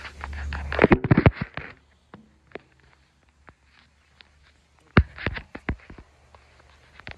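Handling noise from a phone camera being set in place: a low rumbling rub, then a quick run of sharp knocks and clicks about a second in, and another short cluster of knocks around five seconds in.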